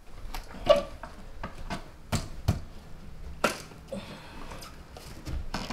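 Irregular sharp clicks and knocks of hand-tool work on a blue plastic electrical box around a wall outlet, as the box is worked loose from the wall. The loudest knock comes just under a second in.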